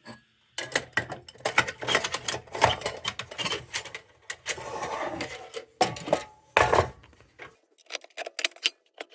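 Tinplate parts of an Embury Air Pilot lantern and its glass globe being handled and fitted together: quick runs of clicks, knocks and rattles, thinning out near the end.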